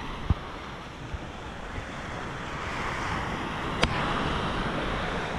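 Small waves breaking and washing up a sand-and-shingle shore, the surf swelling louder about halfway through, with wind on the microphone. A few sharp knocks cut through it, the loudest right at the start and another just before the end.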